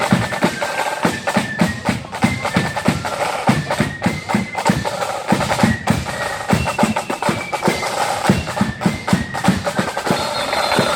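Marching flute band playing a tune: flutes carry a stepping melody over rapid snare and heavy bass drum beats.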